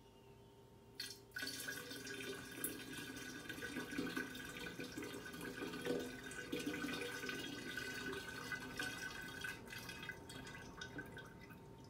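Yeast starter being poured from a measuring jug through a funnel into a carboy of sugar wash: a steady flow of liquid with a steady hollow tone, starting about a second in and thinning out near the end.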